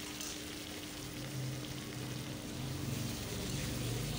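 Cubes of paneer sizzling in hot oil in a steel wok, being stirred, with a low hum rising underneath from about a second in.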